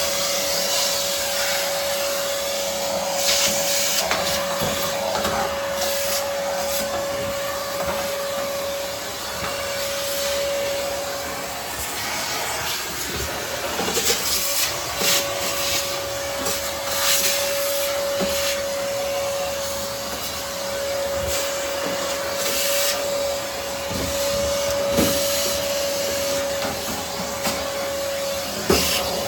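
Vacuum cleaner running steadily with a high, even whine, with occasional knocks and scrapes of the nozzle against parts.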